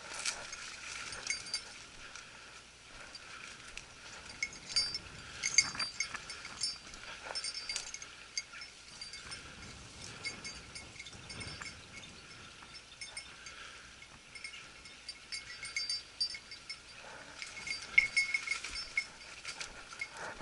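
A bell on a hunting dog's collar tinkling irregularly as the dog moves through the brush, with the soft crunch and rustle of footsteps in dry grass and scrub.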